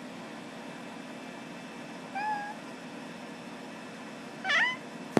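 A cat meowing twice over a faint steady hum: a short soft meow about two seconds in, then a louder meow that bends in pitch near the end.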